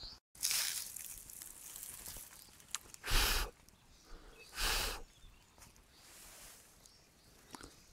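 Three short hissing puffs of air across the microphone, the loudest about three seconds in, with a faint hiss between them.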